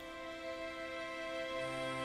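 Soft background music under a nature documentary: sustained, held notes, with a new low note coming in about one and a half seconds in.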